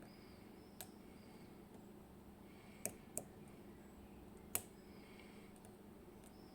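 Four faint, sharp clicks of a lock pick working the main pins inside an IKON SK6 cylinder, the loudest about four and a half seconds in, while the pins are being checked and set.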